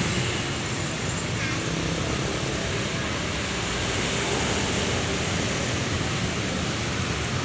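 Intercity buses' diesel engines running as they pull away at low speed: a steady, even rumble of engine and traffic noise.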